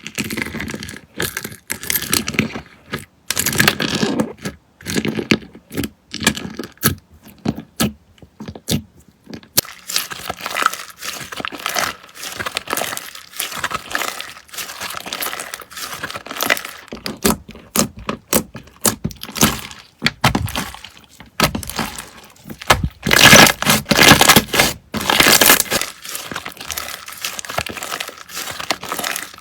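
Slime being squished and stretched by hand: dense runs of small crackles, pops and tearing sounds, with short gaps between presses and a louder, busier spell of crackling late on.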